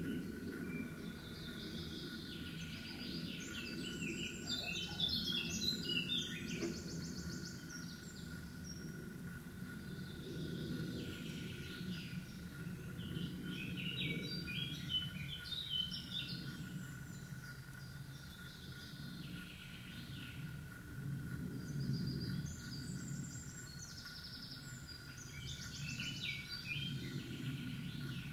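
A songbird singing in three bouts of varied phrases of rapidly repeated high notes, over a steady low background rumble and a faint constant high whine.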